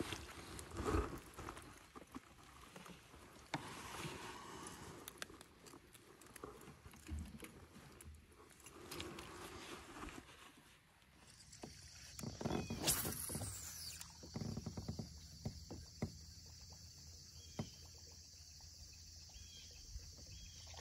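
Quiet knocks, rustles and water sounds of a fish being netted and lifted into a kayak, then a fishing reel being cranked with scattered light clicks over a faint steady high hiss. About two-thirds of the way through there is a brief louder rush with a falling whistle-like sweep.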